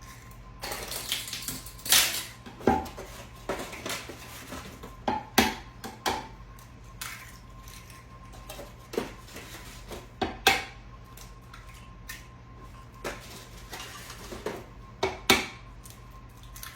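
Eggs being cracked one at a time against the rim of a mixing bowl: sharp single taps spread a few seconds apart, with small clinks of dishes between them.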